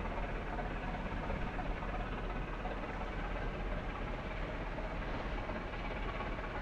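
Steady mechanical rumble with a constant low hum underneath and no single event standing out.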